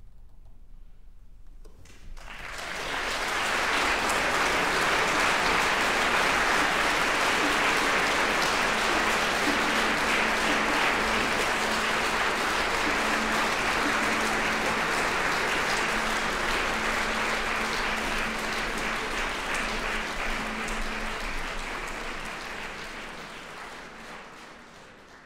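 Audience applauding: after a short hush the clapping rises about two seconds in, holds steady, and fades away near the end.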